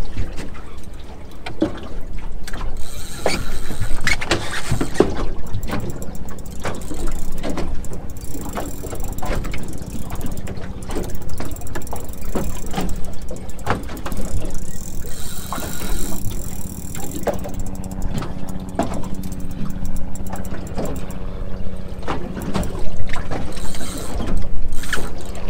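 A fishing reel is being wound during the fight with a kingfish, among the knocks, water and wind noise of a small boat on open water, with a steady low hum underneath.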